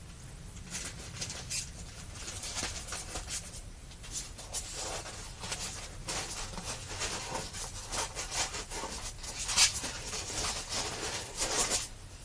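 Plastic parts bag holding a trigger spring and small rifle parts being handled, crinkling and rustling irregularly, with a few louder crackles near the end.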